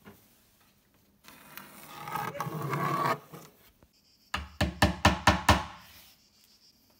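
A hammer driving nails into a plywood panel: about six quick, sharp strikes in just over a second, a little after four seconds in. Before them comes a noisy sound about a second in that swells for two seconds and stops.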